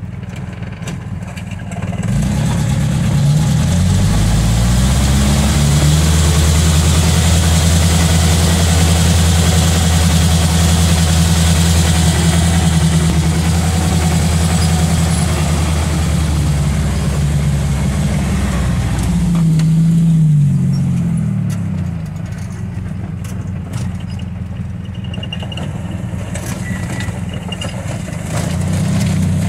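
Small bus's engine heard from inside the cab, revving up about two seconds in and then pulling steadily under load, easing off around twenty seconds in to a lower, quieter running, and picking up again near the end. The bus is driving with first gear not working.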